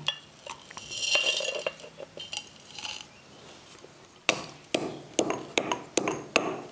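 Whole spices rattling and clinking as they are tipped off a steel plate into a stone mortar. About four seconds in, a stone pestle starts pounding them in a steady rhythm of two to three strikes a second, crushing cinnamon, cloves and pepper coarsely for a pulao masala.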